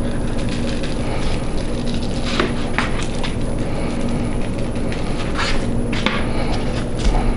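Steady background hum and rumble, with a few short rustles and taps as hands turn raw oxtail pieces on a foam meat tray and shake seasoning over them.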